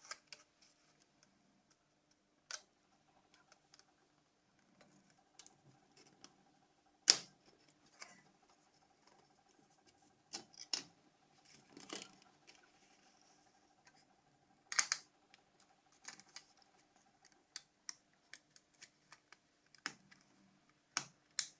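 Scattered small clicks, taps and light scrapes of hand tools on a mobile phone's plastic and metal parts during disassembly. The clicks come at irregular intervals, the sharpest about seven and about fifteen seconds in, over a faint steady hum.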